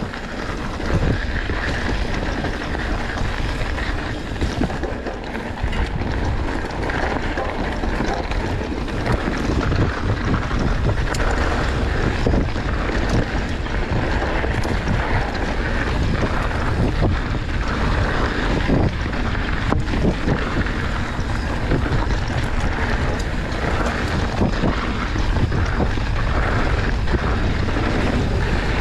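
Mountain bike descending a rough dirt trail at speed: wind rushing over the microphone, with tyre roar and frequent sharp clacks and rattles as the bike runs over roots and rocks.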